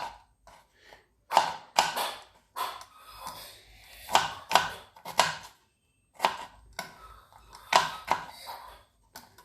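Kitchen knife cutting raw potato into fry-sized strips, each stroke ending in a sharp knock on the chopping board, about a dozen irregular cuts.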